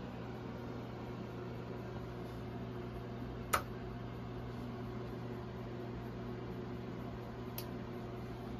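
JVC JA-S55 stereo integrated amplifier being switched on: one sharp click of its power switch about three and a half seconds in, then a much fainter click about four seconds later. A steady low hum runs underneath.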